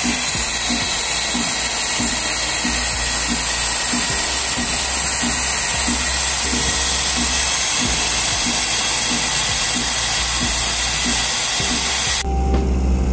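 Steam wand of a Gemilai CRM3007L espresso machine, with a three-hole tip, blowing steam with a loud, steady hiss. The hiss cuts off sharply near the end.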